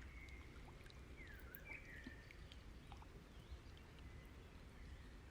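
Near silence: faint room tone, with a few faint bird chirps about a second and a half in.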